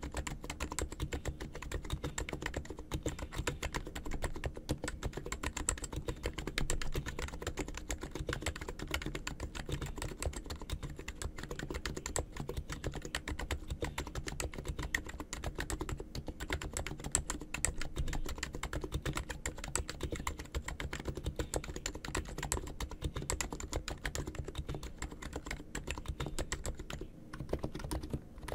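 Fast, continuous typing on an ABKO K990 V3 electrostatic capacitive (Topre-style) keyboard with stock keycaps and freshly lubed wire stabilizers, a dense stream of key clacks. Near the end there is a brief pause, then the typing starts again.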